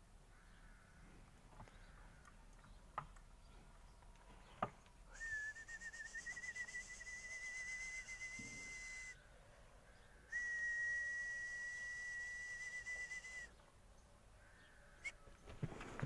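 Two long whistles held at one steady pitch, each about three to four seconds, with a pause of about a second between them. Near the end, hooves scuffle in loose sand as the buffalo bull mounts.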